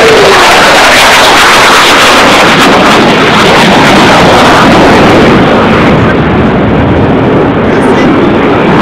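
Low-flying fighter jet passing close by: loud, continuous jet engine noise, with a tone falling in pitch just at the start as the jet goes past.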